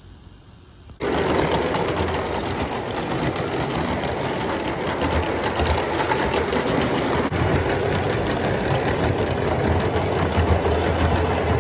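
Vintage 1926 Bassett-Lowke O gauge live steam 2-6-0 Mogul locomotive running, a rapid continuous chatter of chuffing exhaust, running gear and wheels on the rails. It starts abruptly about a second in.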